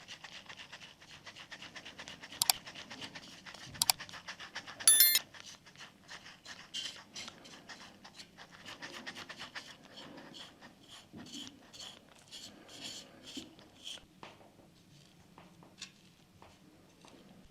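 Quick, repeated scratching strokes of hand work on a small scale model, broken by a few sharp clicks, one of them a brief metallic ring about five seconds in. The strokes thin out near the end.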